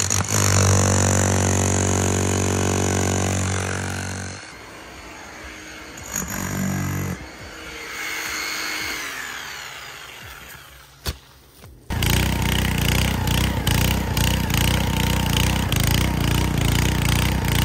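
An SDS rotary hammer running hard, breaking up hard clay at the bottom of a deep post hole for the first four seconds. From about twelve seconds in, the small gas engine of a two-man earth auger runs loud as the auger bores into the hillside.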